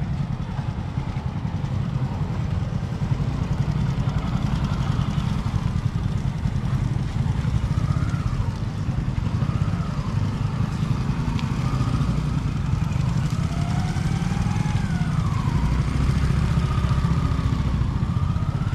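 Motorcycle engine running at low speed as it is ridden slowly around tight figure-eight turns, its pitch rising and falling with the throttle.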